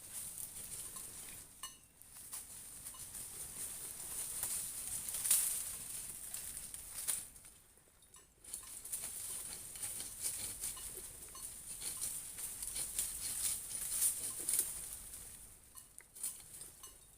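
Crickets chirring in a steady high-pitched drone that breaks off briefly a few times, with scattered light clicks and taps over it.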